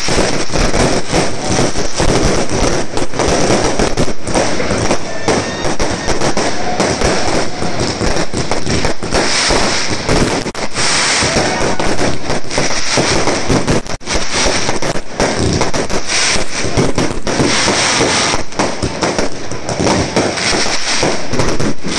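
Aerial fireworks going off in a dense, almost unbroken barrage of bangs and rapid crackling pops, with brief lulls about ten and fourteen seconds in.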